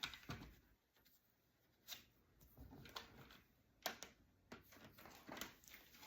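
Faint scattered clicks and knocks of plastic vacuum cleaner parts being handled, as the floor brush is fitted onto the extension pipes. The motor is not running.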